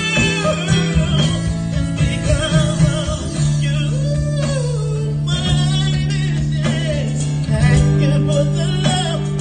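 A male singer singing a slow ballad live, backed by a small band.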